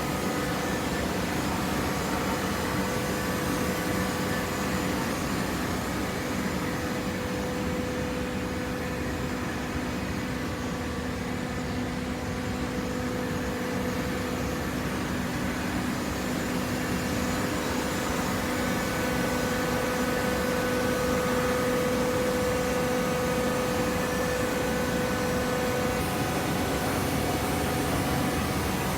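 Hydraulic cardboard baler running: a steady mechanical hum with a few held tones over a wash of machine noise, growing a little stronger about two-thirds of the way through.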